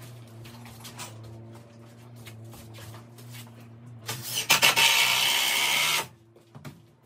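Cordless drill running for about two seconds as it drives a screw through the door lining into the timber frame, starting about four seconds in and stopping abruptly. Before it, light taps and knocks from the lining being handled over a low steady hum.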